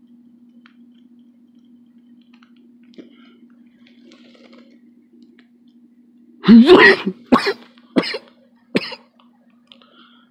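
A man coughing hard on marijuana smoke: a loud bout of coughs past the middle, then three shorter single coughs over the next two seconds.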